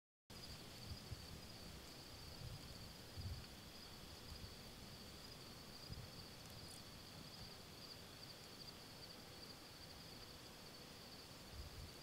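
Insects in the grass: one steady, unbroken high-pitched buzzing trill, over a faint low rumble with a few soft bumps.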